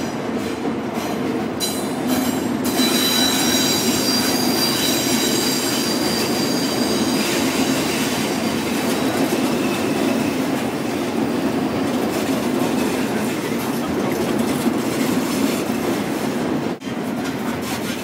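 A train passing on a tight curve of a rail viaduct, loud, with its wheels squealing: several shrill high tones that are strongest for the first several seconds and then fade. They sit over a steady rumble and clatter of the wheels on the track. This is flange squeal from the curve, the rail noise the place is known for.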